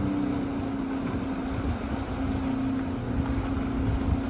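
Jet ski engine running at low speed as the craft moves across the water, a steady hum that holds one pitch, with wind rumbling on the microphone.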